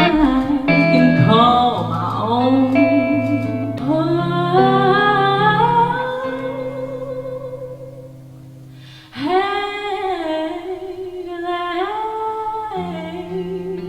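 A song: a voice singing long, held melodic lines over guitar and steady low notes. About eight seconds in the phrase fades down, and a new phrase comes in a second later.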